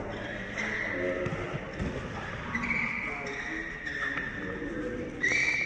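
Basketball game sounds: a ball bouncing on a court and high shoe squeaks, the loudest squeak near the end, amid players' voices.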